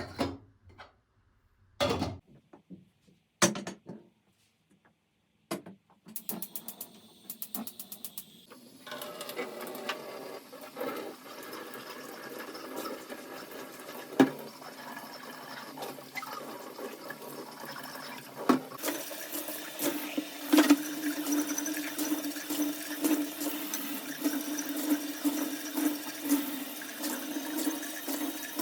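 A few separate knocks and clicks, then water running steadily from a tap into a sink, getting louder about two-thirds of the way through.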